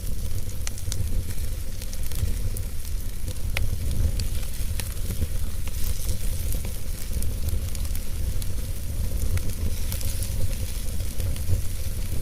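Wood fire burning in a fireplace: a steady low rumble of the flames with scattered sharp crackles and pops over a soft hiss.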